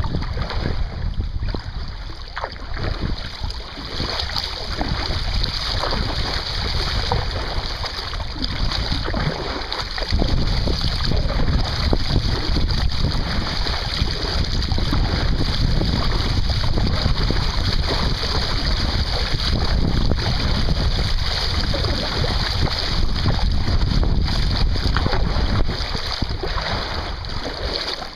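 River water rushing and churning over a shallow bar weir around a kayak being paddled upstream, with wind buffeting the microphone. It grows louder about ten seconds in and eases near the end.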